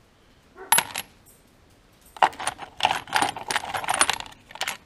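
Steel bolts and washers clinking and rattling against each other as a hand rummages through a compartment of a parts organizer box: a few clinks about a second in, then a longer run of clinking from about two seconds in until just before the end.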